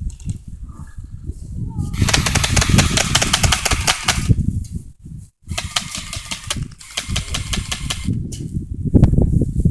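Airsoft gun firing on full auto in two long bursts of rapid shots, the first about two seconds in and the second from about halfway through, over a low rumble on the microphone.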